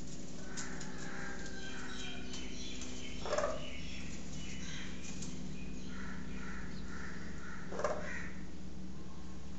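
Domestic hens calling: two short, harsh squawks, one about three seconds in and one near the end, with softer, higher calls between them over a steady low hum.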